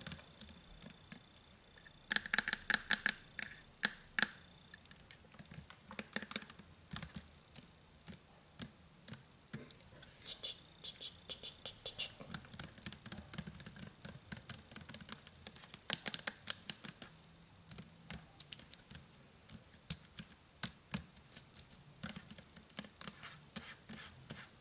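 Fingernails scratching and tapping on a plastic trigger-spray bottle of KH-7 stain remover: irregular runs of crisp clicks and scrapes, with brief pauses between runs.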